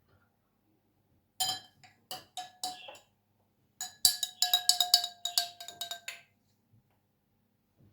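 Spoon clinking against the side of a cup, each strike ringing at the same pitch: a few separate taps, then a quick run of clinks about five a second, as in stirring, that stops about six seconds in.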